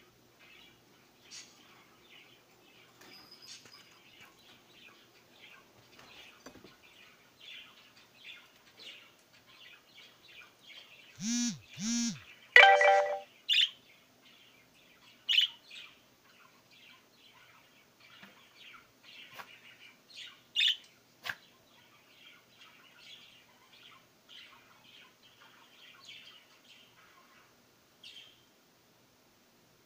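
Pet budgerigar warbling and chirping softly without a break. About eleven seconds in, two short loud sounds and then a louder pitched sound of a second or so stand out above the chatter. A couple of sharp clicks come near twenty seconds in.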